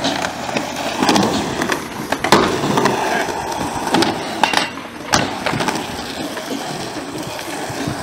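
Skateboard wheels rolling on concrete, with several sharp clacks as the board and trucks hit the ground and ramps.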